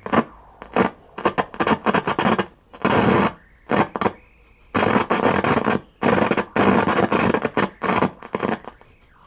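Loud static hiss from a 1966 Sylvania tube color TV's speaker, cutting in and out in uneven bursts as the tuner knobs are turned through the channels.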